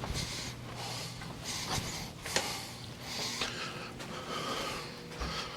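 A man breathing heavily close to the microphone in a series of breaths, with a couple of sharp clicks or knocks about two seconds in.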